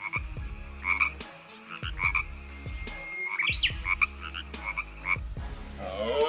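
Frog croaking: short calls repeated about once a second.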